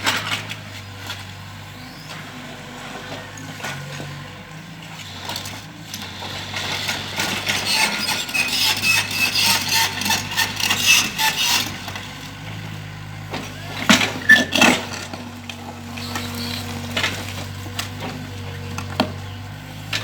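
Mini excavator engine running steadily, with its bucket scraping and grinding through gritty ground for several seconds in the middle, then a few sharp knocks a couple of seconds later.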